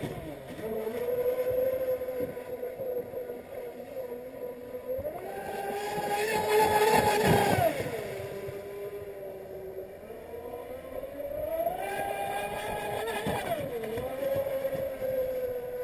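Brushless electric motor and propeller of a fast RC catamaran speedboat, a 51 mm prop on a Thunderbolt cat, running as a steady high whine. The whine rises in pitch and gets louder about five seconds in, drops back a few seconds later, then rises again near twelve seconds and falls away.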